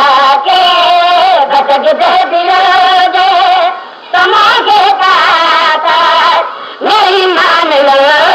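A solo voice singing a devotional majlis recitation in long, wavering held phrases, pausing briefly for breath twice.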